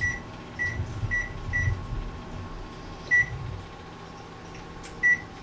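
Short electronic beeps from a kitchen appliance's keypad as a timer is set: four in quick succession about half a second apart, then one about three seconds in and one near the end, with a click at the first.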